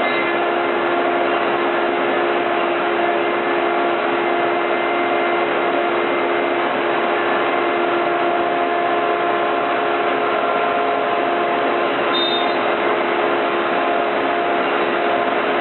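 CNC router spindle with a 1/4-inch bit cutting MDF: a loud, even whine that holds a steady pitch throughout.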